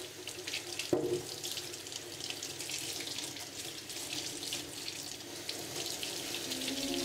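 Kitchen tap running into a stainless steel sink, the water splashing over cherries being rinsed by hand in a small container. A small knock about a second in.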